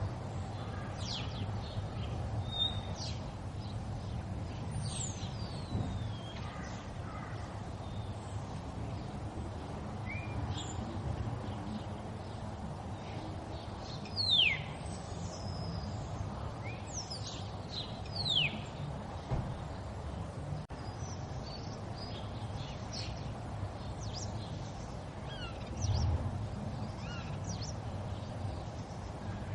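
River water running steadily, with songbirds chirping over it: short, sharp, falling high whistles now and then, a few of them louder.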